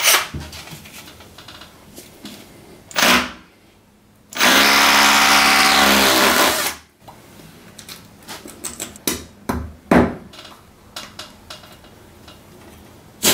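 Bosch hammer drill boring into the wall, running steadily for about two and a half seconds and stopping abruptly. A brief burst of noise comes before it, and light clicks and taps follow as a hook is pushed into the fresh hole.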